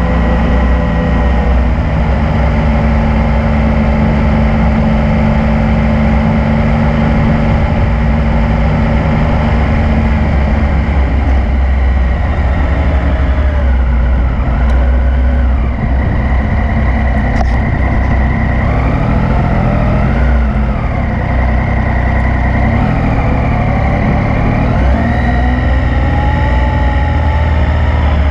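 Yamaha MT-09's three-cylinder engine running under way, holding a steady note for the first ten seconds or so, then rising and falling in pitch several times as the rider works the throttle.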